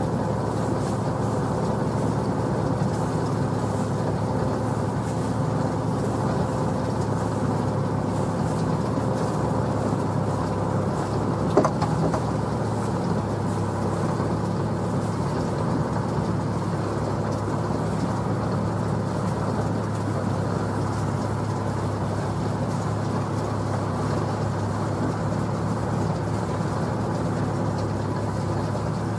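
Small sailing boat's motor running steadily at one even pitch, with a single sharp knock a little before halfway.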